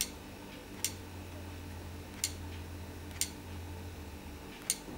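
Five sharp single clicks, about a second apart, as keys are tapped on the Toshiba Thrive tablet's on-screen keyboard, over a faint steady low hum.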